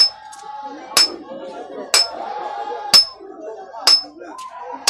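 Regular metallic strikes, about one a second, each with a short high ring, like metal being hammered on metal. Voices run underneath.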